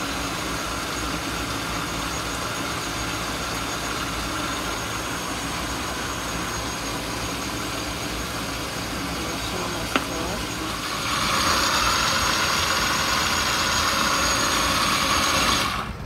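A steady electric motor whir from a kitchen appliance. It gets louder and brighter about eleven seconds in, then stops suddenly just before the end.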